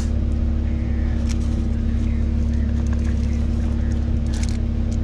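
Idling car with its air conditioning running: a steady low hum with a few faint steady tones above it. There are a couple of brief faint rustles, about a second in and near the end.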